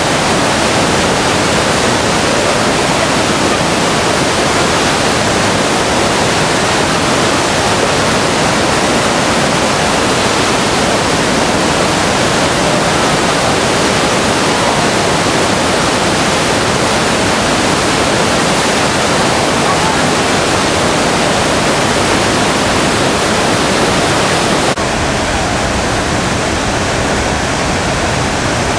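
The Niagara River rapids rush in a loud, steady wash of water noise. About 25 seconds in, the sound changes abruptly and turns slightly duller, as it becomes the steady pour of Niagara Falls going over the brink.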